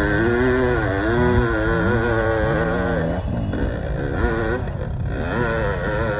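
Dirt bike engine revving, its pitch rising and falling continuously, with a brief dip about three seconds in.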